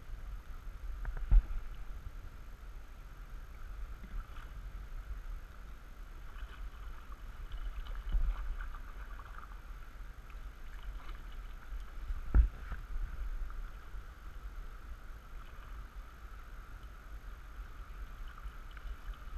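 A canoe paddled down a rapid: rushing river water runs steadily over a low rumble, and paddle strokes splash. Two sharp knocks, against the canoe hull, come about a second in and again about twelve seconds in.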